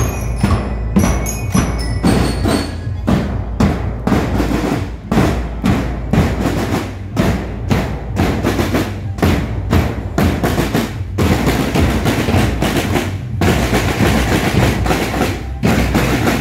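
A marching school drum corps of bass drums and snare drums playing a steady marching beat. A few ringing bell-like tones sound over the first two seconds, and the drumming runs together into a continuous roll for a couple of seconds about two-thirds in.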